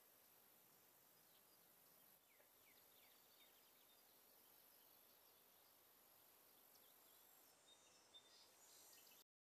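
Near silence: faint outdoor ambience with a few faint high chirps, cutting off to total silence near the end.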